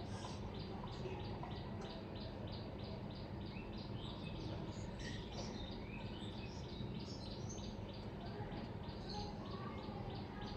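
Faint bird chirping: a quick, regular chirp repeated about four times a second, with a few other short calls in the middle, over a steady low hum.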